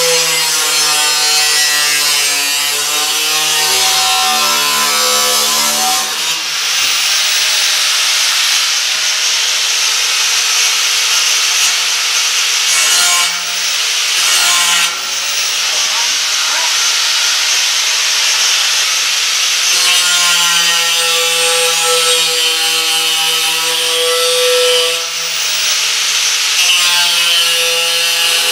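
Angle grinder with a new cutoff wheel cutting through the steel grille bars of a 1933–34 Ford truck grille shell: a continuous harsh cutting noise over the steady hum of the motor, with a few brief dips.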